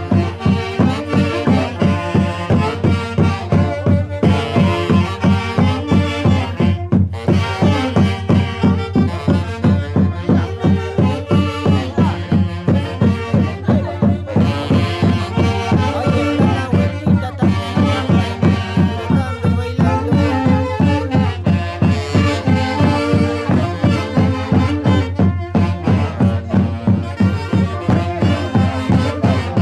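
Andean Santiago festival dance music: a steady, even drumbeat under a continuous melody.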